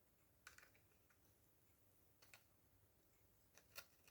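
Near silence: room tone with a few faint, short clicks, about half a second in, a little after two seconds, and twice near the end.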